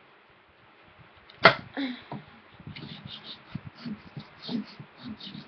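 Handling noise: one sharp knock about a second and a half in, then a run of short, irregular taps and scrapes.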